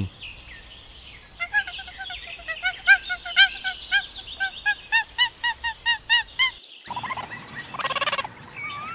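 Capuchin monkey giving a run of short, repeated peeping calls, about two a second, over a steady high whine; the calls stop abruptly about seven seconds in.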